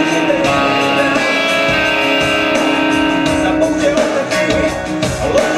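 Electric guitar playing held, ringing chords and notes.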